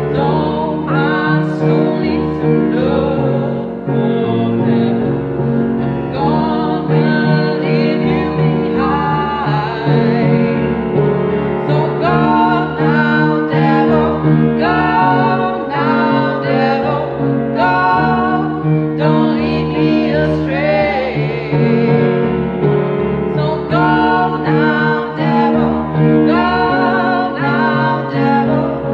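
Live music: singing with wavering, drawn-out vocal lines over steady sustained instrumental chords.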